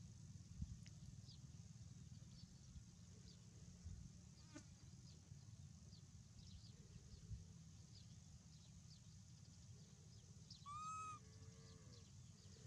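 Near-silent outdoor quiet with faint high chirps, broken about eleven seconds in by one short, high-pitched call that arches up and down: the coo of a baby macaque.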